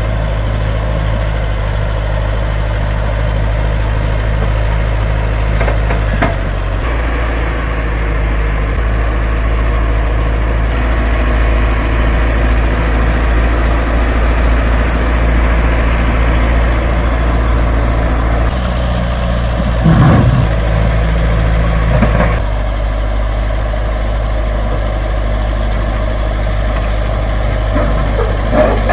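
Heavy earthmoving machine's engine running steadily at a low, even pitch, with a few short knocks and clanks, the loudest about 20 and 22 seconds in.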